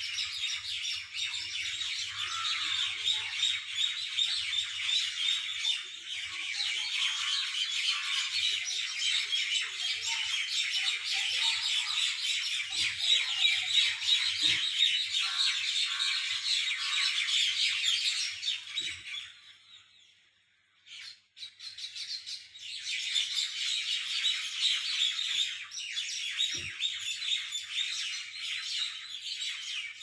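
Many birds chirping and chattering at once in a dense, unbroken chorus. About two-thirds of the way through it fades away for a couple of seconds, then comes back.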